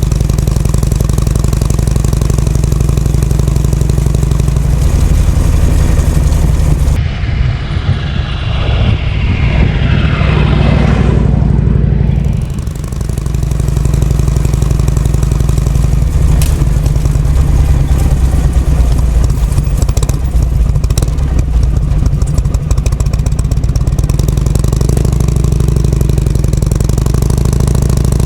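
Harley-Davidson Shovelhead V-twin engine of an FLH running steadily under way on a break-in ride after an abnormal-noise repair. A falling sweep in pitch passes between about seven and twelve seconds in.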